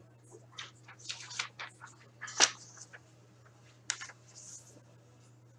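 Paper sheets rustling as they are handled, in short scattered rustles with the sharpest about two and a half seconds in, over a low steady hum.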